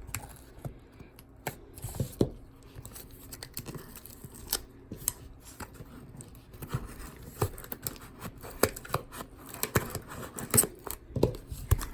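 A small cardboard box being opened by hand: tape tearing, with irregular clicks, scrapes and rustles of cardboard and packing material.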